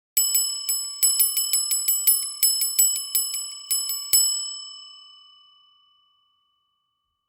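Small bell rung rapidly, about four strikes a second for some four seconds, the last strike ringing out and fading: the timer's end-of-countdown signal.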